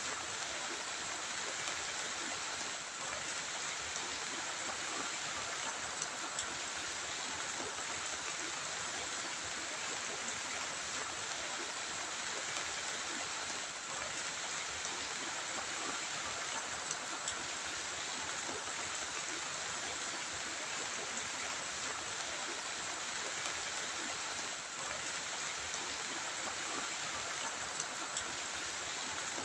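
Heavy rain falling in a steady, even hiss, with a few sharper drop ticks now and then.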